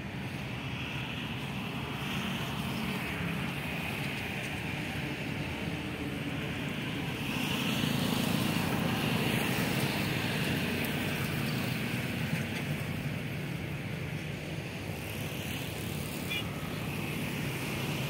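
Steady outdoor background rumble with a hiss over it, a little louder for a few seconds around the middle.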